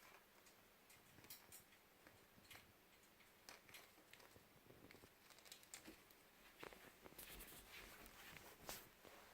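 Faint, irregular light taps and scratches of a small pet bird moving about its play area, a little busier near the end.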